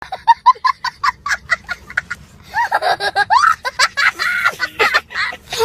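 Young child laughing hard: first a quick run of short 'ha' bursts, about five a second, then after a brief pause longer, high-pitched laughs that rise and fall.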